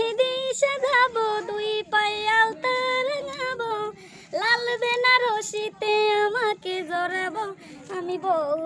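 A woman singing without accompaniment in a high voice, holding long notes, with a short break about four seconds in.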